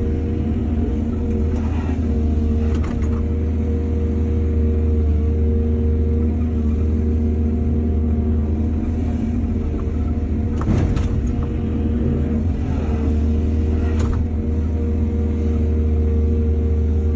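Excavator diesel engine running steadily under load, with a few sharp clanks of the bucket or tracks, the loudest nearly 11 seconds in.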